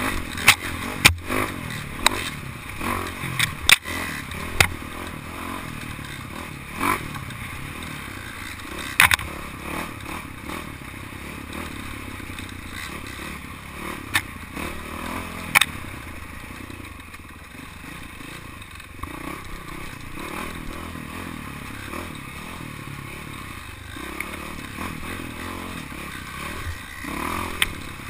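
Dirt bike riding a rough forest trail, heard from a camera mounted on the bike: the engine runs under a steady rushing noise, with sharp knocks and rattles as the bike hits bumps. The knocks come thickest in the first few seconds, a few more come later, and another cluster comes near the end.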